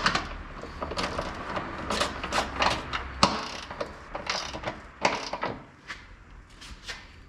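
Irregular metallic clicking and rattling from hand tools, such as a socket ratchet, working on the front suspension member bolts. The clicks are busiest in the first five seconds and thin out near the end.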